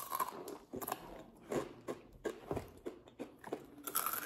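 Crunchy rolled tortilla chips (Takis) bitten and chewed, with irregular loud crunches one after another.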